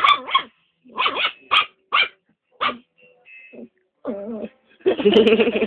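A dog barking in play at a cat: about six short, sharp barks in the first three seconds, then two longer drawn-out calls near the end.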